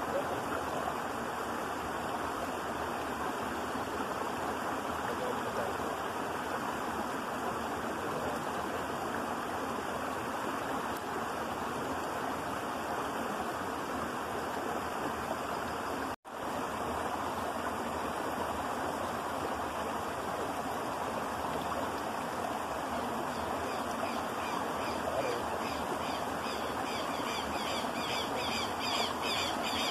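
Shallow rocky stream running over stones: a steady rush of water, with a brief dropout about halfway through.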